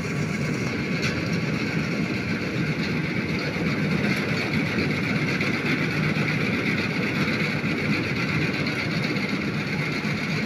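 Combine harvester running steadily as it cuts ripe paddy: a continuous engine drone with a higher machinery hum over it.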